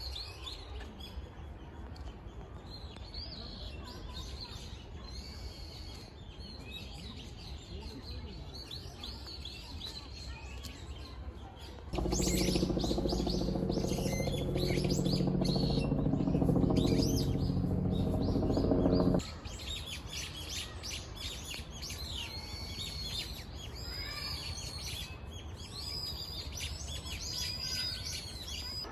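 Small wild birds chirping and twittering over and over. About twelve seconds in, a louder low rumble with a steady hum comes in, lasts about seven seconds and cuts off sharply, while the chirping goes on above it.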